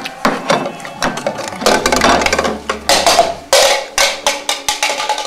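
Irregular crinkling of a plastic food bag and clattering of plates and dishes as several people grab at food on a table, with a run of sharp clicks and louder rustling bursts.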